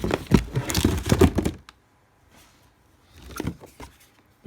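Rustling and crackling of products and packaging being handled and moved: a dense flurry in the first second and a half, a shorter one about three seconds in, and another starting at the very end.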